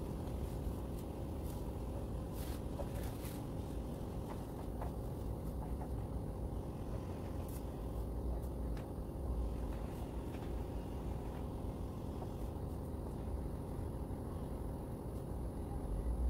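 Steady low rumble of outdoor background noise, with a few faint light clicks, mostly in the first few seconds.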